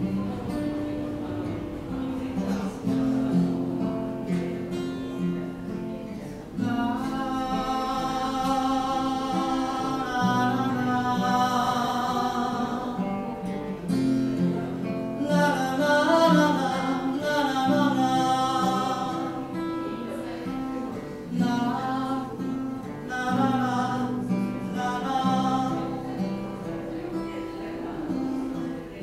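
A man playing chords on a round-back acoustic guitar, alone for the first several seconds, then singing over it in phrases with short breaks between lines.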